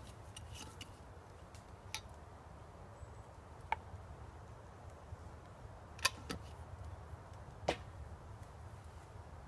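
Glass jar and its screw lid handled and set down on a wooden plank table: a few sharp clicks and knocks, the loudest about six seconds in, over a steady low rumble.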